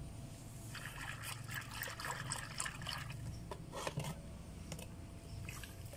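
Soapy water trickling and sloshing in a plastic basin as hands scoop and pour it over a baby monkey, with small splashes and rubbing, busiest in the first half.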